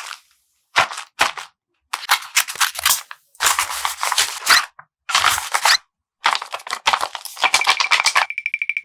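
Paper blind bag being handled and opened: crisp paper crinkling in short spells with sudden silences between them. Near the end comes a quick rattling run of clicks with a steady high tone.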